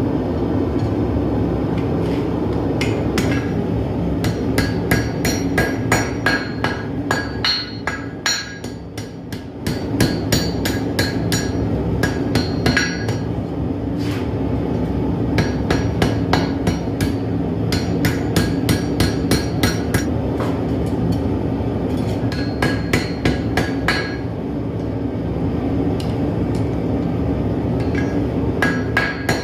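Blacksmith's hammer striking steel on an anvil in quick runs of blows, about two or three a second, with a short pause about a third of the way through. A steady low rumble runs underneath.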